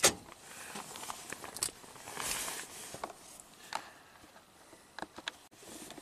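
A sharp click at the start, then faint scattered clicks and soft rustling.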